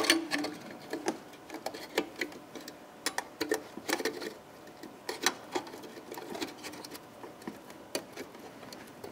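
Irregular plastic clicks and taps of a headlight bulb's wiring connector being worked and pulled off its socket by hand.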